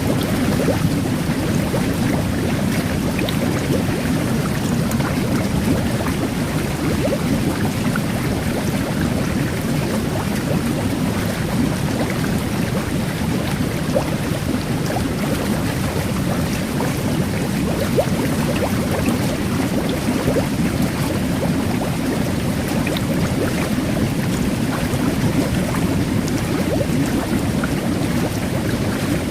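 Jet bath churning water with a steady low rumble, layered with the fine crackle of tiny fizzing bubbles.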